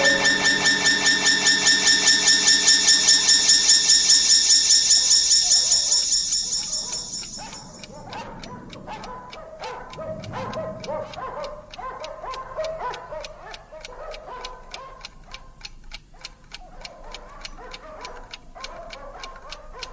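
Radio-drama music bridge: a loud, rapidly pulsing sustained chord that fades out about seven seconds in. It gives way to a quieter passage of even, clock-like ticking under soft scattered notes.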